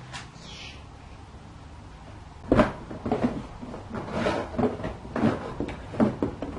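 Cardboard toy box being handled and its flaps opened: a sharp knock a couple of seconds in, then a run of irregular knocks and cardboard rustles.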